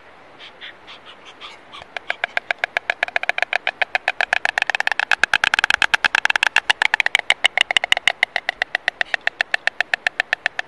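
A pair of white storks bill-clattering on their nest: a few slow clacks, then from about two seconds in a rapid rattle of about ten clacks a second that stops just before the end. This is the stork pair's greeting display.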